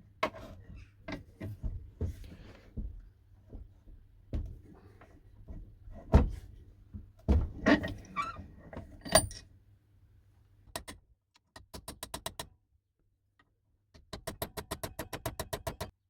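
Metal hand tools knocking and clattering as they are handled, then two runs of quick, even clicking, about ten clicks a second, typical of a ratcheting spanner's ratchet being turned.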